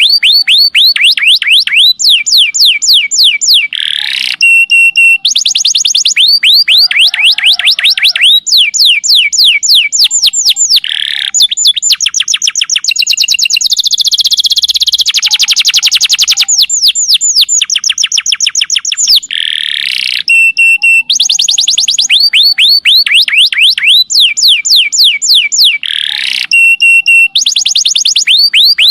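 Domestic canary singing a long, loud, unbroken song of rapid high trills: fast runs of repeated sweeping notes, several to ten a second, with a denser, buzzier roll about halfway through.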